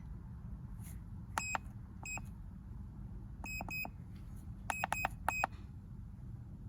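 Handheld OBD-II scan tool beeping as its buttons are pressed to erase the stored misfire codes: several short, high beeps in small clusters over a low background hum.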